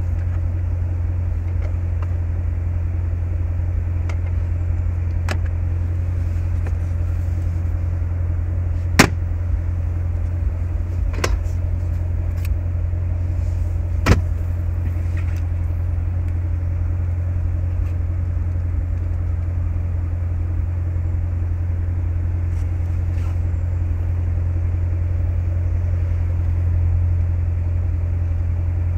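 Chevrolet Corvette C7 Stingray's 6.2-liter V8 idling steadily in park, a constant low hum heard from inside the cabin. Over it come a few sharp clicks of interior lids and latches, the loudest about nine seconds in and another at about fourteen seconds as the glovebox lid is worked.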